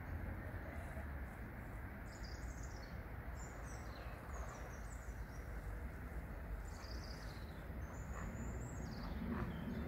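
Steady outdoor background rush with short, high, gliding chirps and twitters of a small bird, coming in several bursts through the middle and near the end.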